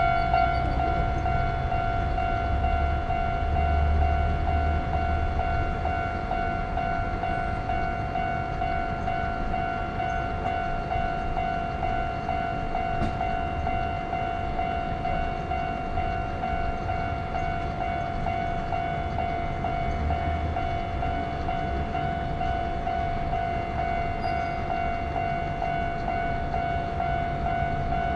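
Japanese level-crossing warning bell ringing steadily, its electronic tone unbroken, over the rumble of a train running past on the track.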